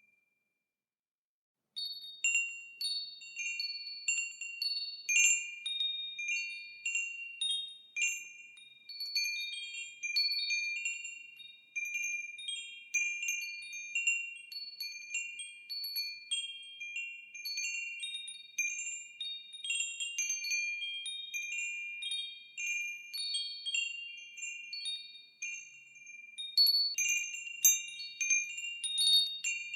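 Wind chimes ringing, with many clear, high tones struck at irregular intervals that overlap and die away. They start about two seconds in after a brief silence and grow busier near the end.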